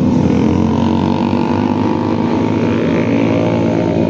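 Motorcycle engines running at speed as bikes pass close by through a bend, loud and steady with no break.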